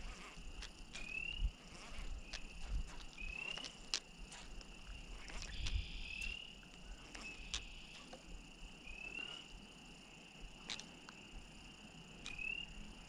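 Frogs calling around a pond: a steady high chorus with a single short rising peep every two to three seconds, and scattered sharp clicks throughout.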